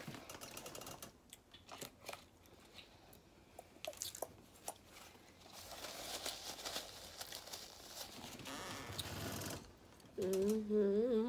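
Paper napkin crinkling and rustling with light clicks during a meal, the rustling longest in the middle. About ten seconds in, a closed-mouth hum with a wavering pitch, a mouth-full "mm" of enjoyment.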